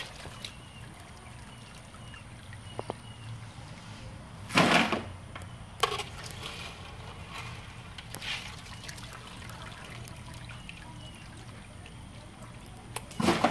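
Crawfish boil liquid pouring and dripping off a strainer scoop of boiled crawfish as it is lifted from the pot, with a louder splash about four and a half seconds in and shorter ones near six seconds and at the very end.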